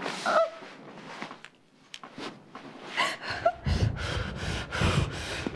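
A woman breathing hard and panting through a labor contraction, in short gasping breaths. A low rumble joins in a little after three seconds.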